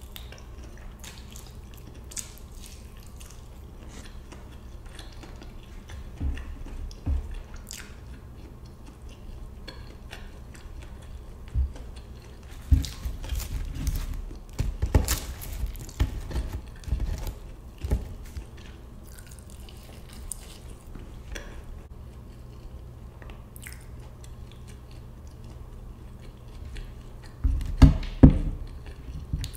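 Close-up sounds of a person eating fried chicken and fries: chewing and biting with small wet mouth clicks, busier in the middle. A few louder low thumps come near the end.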